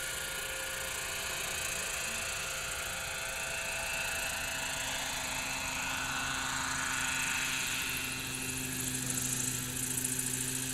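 Radio-controlled scale model Flettner FL-282 Hummingbird helicopter with intermeshing rotors, its engine and rotors running steadily as it descends and lands. About four seconds in, the hum settles into a steadier, lower tone.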